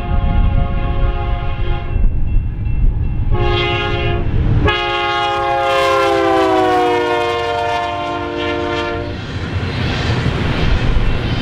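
Union Pacific diesel locomotive's multi-chime air horn sounding in blasts as a fast intermodal train approaches. The last long blast drops in pitch as the locomotive passes, and after about nine seconds the horn stops, leaving the steady rumble and rattle of the double-stack container cars going by.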